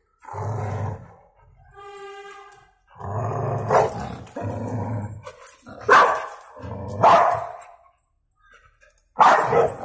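Two pit bulls play-fighting: deep, rough growling in several bursts, broken by about four sharp barks.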